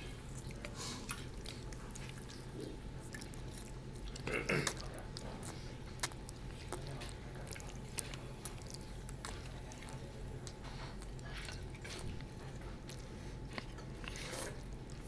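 Close-up eating sounds: chewing and slurping of black bean noodles, with light clicks of chopsticks and a fork against plates, over a steady low room hum. One brief louder sound comes about four seconds in.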